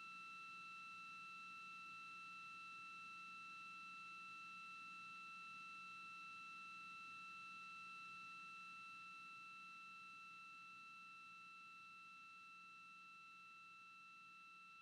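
Faint, steady high-pitched electronic tone with overtones over a low hum, carried in the broadcast audio feed; it grows slightly quieter in the second half.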